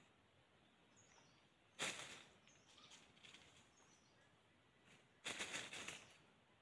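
Faint, short high-pitched bird chirps every second or so, with two loud brief rustling bursts, about two seconds in and again past five seconds.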